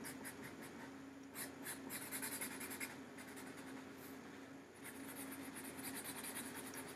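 Felt-tip marker scribbling on paper, coloring in a shape with quick back-and-forth strokes, about four or five a second, easing off briefly in the middle.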